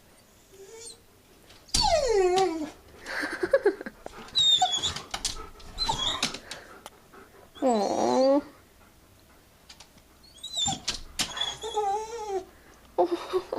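A dog making strange whining, yowling cries: several separate pitched calls that bend up and down, with thin high whines in between. It is the worked-up sound of a dog that has spotted a rabbit and is being held back from chasing it.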